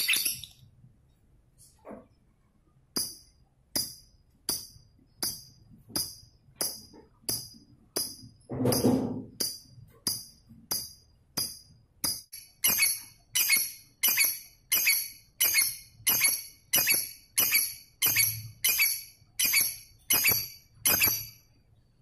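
Fischer's lovebird giving a long, even series of short, sharp, shrill chirps, about two to three a second, with one longer, fuller call about nine seconds in.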